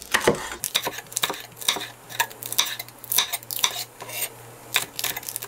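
Kitchen knife chopping mild green chili peppers on a thick wooden cutting board: a quick, irregular series of sharp chops as the blade cuts through and knocks on the wood.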